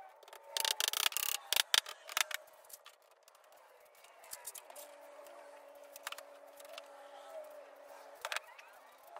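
Metal parallel bar clamps being handled and set on a plywood frame: a quick run of sharp clicks and clatter about a second in, then scattered light knocks. A faint steady hum runs from about five to eight seconds in.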